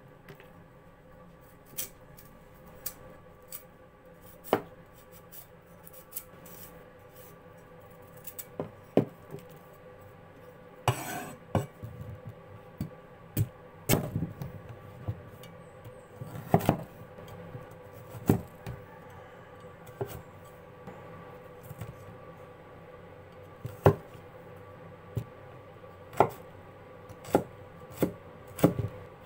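Large meat cleaver cutting carrot on a thick wooden chopping board: irregular single chops and short runs of knocks on the board, a second or more apart, with a brief scrape of the carrot being peeled.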